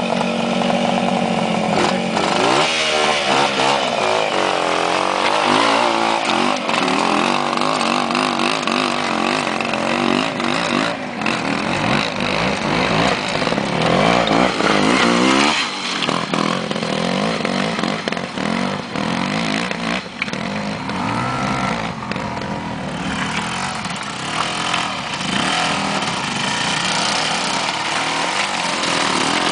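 Trials motorcycle engines revving up and down in short bursts, the pitch rising and falling over and over as the bikes pick their way over rocks.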